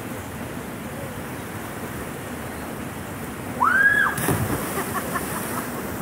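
Steady rush of a rocky cascade flowing into a pool. About three and a half seconds in, a high-pitched scream, and right after it a splash as someone jumps into the water.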